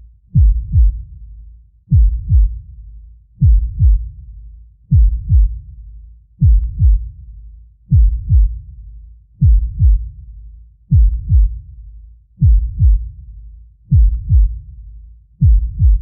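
Deep heartbeat sound effect: a slow, steady lub-dub double beat about every one and a half seconds, with a low rumble between the beats.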